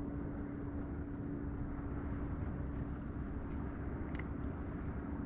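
Steady outdoor wind and water noise on an open flat, with a constant low hum throughout and a faint click about four seconds in.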